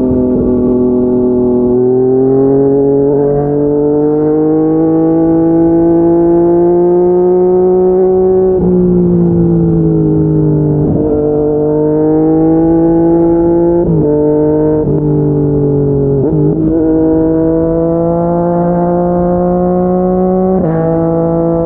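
Yamaha MT-09 inline three-cylinder engine through a Yoshimura R55 slip-on exhaust, accelerating under load. The pitch climbs slowly and drops sharply at each of several quick upshifts.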